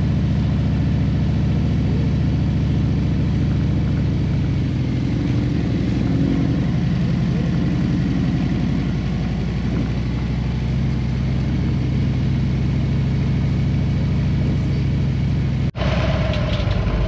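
Harley-Davidson Road Glide's V-twin engine running steadily at low speed under the rider. There is a brief dropout near the end.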